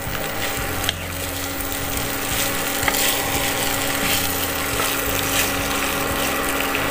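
Wooden spatula stirring and scraping fried rice with vegetables around a hot nonstick pan, with a light sizzle and a steady low hum underneath.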